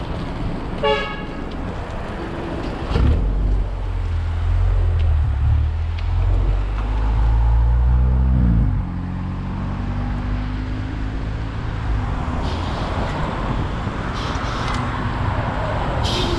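Road traffic heard from alongside: a short horn toot about a second in, then a vehicle engine running close by, loud and low for about six seconds, its pitch rising and falling before it drops away suddenly, leaving steady traffic noise.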